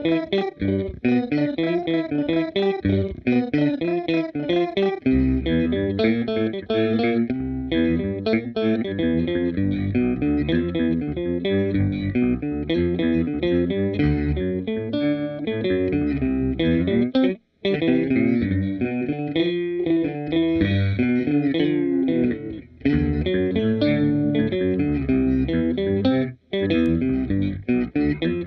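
Electric guitar played through a Seesaw V2 pitch-shifter pedal, a continuous riff with pitch-shifted notes layered on it. A heavier low part comes in about five seconds in, and the playing stops briefly twice in the second half.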